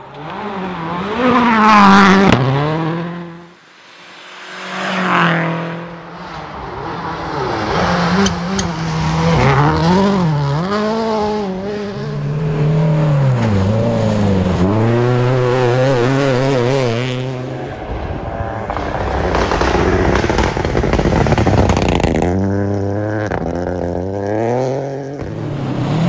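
Rally car engines at hard throttle, revs climbing and dropping again and again through gear changes and lifts. Two loud swells in the first few seconds, then a sustained engine note wavering in pitch.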